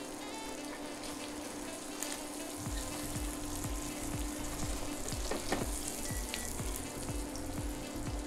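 Butter and garlic sizzling around a kokanee salmon fillet frying in a stainless steel pan, with a spoon scraping and ladling the hot butter over the fish. Low regular thumps come in about two and a half seconds in.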